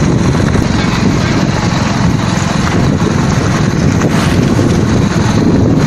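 Motorcycle engine running close by, a steady, rough noise.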